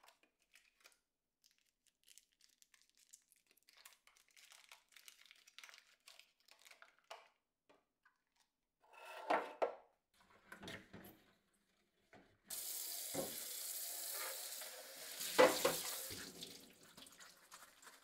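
Plastic sauce packets and jars rustle and clink faintly as a plastic refrigerator door bin is emptied, with a louder clatter about nine seconds in. About halfway through, a kitchen tap starts running into a stainless steel sink as the bin is rinsed, with a few knocks of the bin against the sink; the water tails off near the end.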